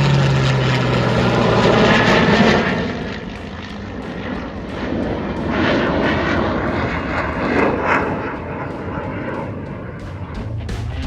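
Aircraft flying past low, loud, the engine pitch dropping in the first second as it passes. The sound fades after about three seconds and swells again as another pass comes through.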